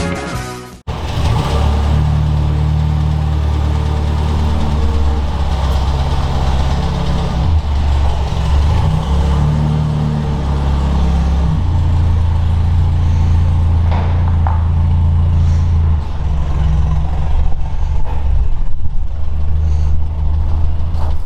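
A motor vehicle's engine running steadily, its low note shifting up and down in steps every few seconds.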